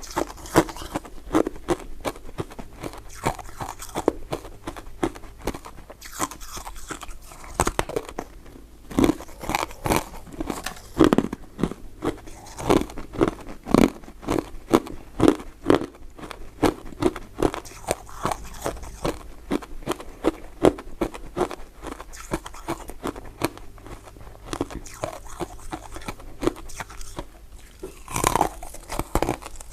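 Close-miked chewing and biting of powder-coated soft mint candies, a steady run of short sharp mouth clicks several times a second, with a louder cluster near the end.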